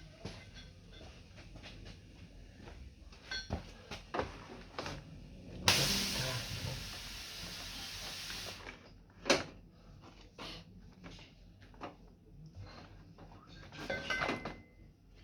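A burst of pressurised gas hissing steadily for about three seconds, among scattered knocks and clatter of handled metal parts.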